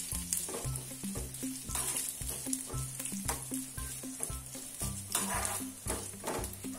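Coconut pieces sizzling in ghee in a small pan, with a steel spoon stirring and scraping against the pan, busiest about five seconds in. Background music plays underneath.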